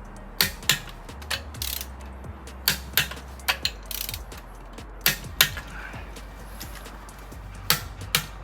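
Torque wrench tightening the wheel bolts on a BMW 650i: a string of sharp metallic clicks and ratchet ticks, several coming in quick pairs.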